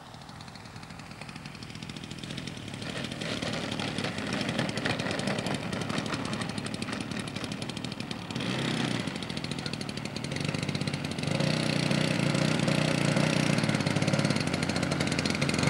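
The model biplane's 60 cc two-stroke engine, converted from a Sachs Dolmar chainsaw, running with a fast buzzing beat as the plane lands and rolls across the grass. It grows steadily louder as the plane comes closer and is loudest over the last few seconds.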